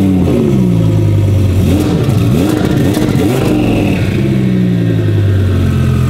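Twin-turbo Audi R8 V10 engine just after a start-up, exhausting through turn-down pipes. The start-up flare settles, the engine is blipped three times in quick succession, and from about four seconds in it runs at a steady idle.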